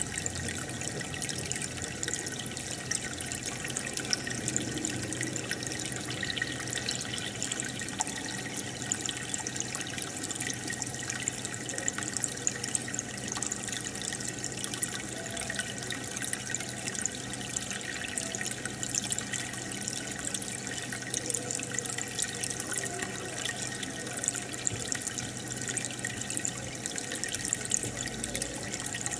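Aquarium aeration bubbling and water trickling steadily, with many fine pops of bubbles breaking at the surface.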